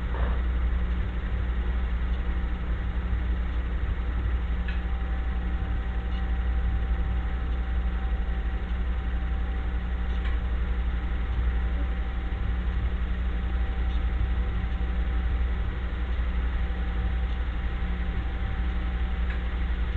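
A steady low hum, like a motor idling, with no clear rise and fall; a faint thin steady tone joins it about four seconds in.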